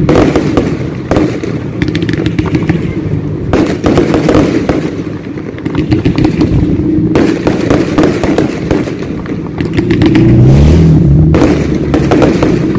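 Fireworks going off: irregular runs of bangs and crackling from shells launching and bursting, over a steady low hum.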